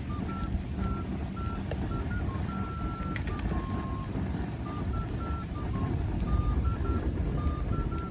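A simple melody of plain, beep-like electronic notes, a few steps in pitch apart, played over a wood fire crackling with scattered sharp pops and a low steady rumble.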